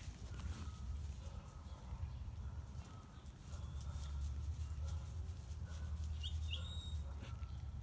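Low wind rumble on the microphone, with crackling of dry bamboo leaves underfoot. About six seconds in, a bird gives two quick rising chirps.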